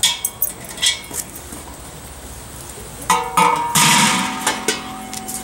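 Large stainless steel cookware being handled: a few light metal clinks, then about three seconds in a sharp clang and clatter that leaves the metal ringing in several steady tones.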